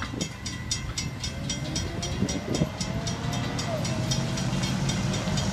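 Railroad crossing bell ringing rapidly, about five strokes a second, as the crossing gates rise once the train has cleared. Under it, the low rumble of idling cars and trucks waiting at the crossing.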